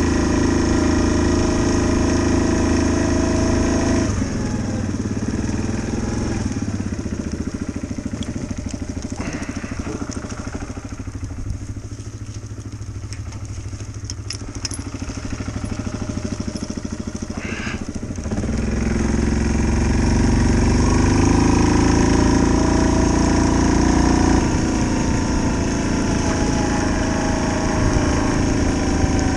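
ATV engine running under way. It eases off about four seconds in and picks up again for the last third.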